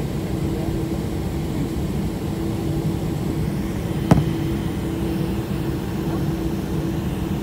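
Cabin noise of a Boeing 747 taxiing, heard from a window seat: a steady low rumble with a steady hum. A single sharp click about four seconds in.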